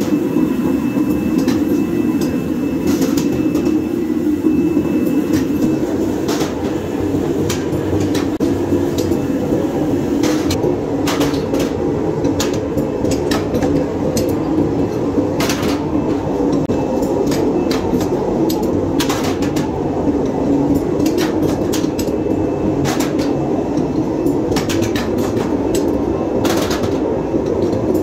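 Steady, loud mechanical drone of forge-workshop machinery, with scattered sharp clicks and knocks, more of them in the second half.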